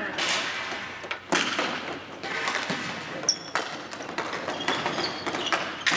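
Ball hockey play: a rapid, irregular run of sharp knocks and clacks of sticks, ball and boards, with a brief high squeak about three seconds in.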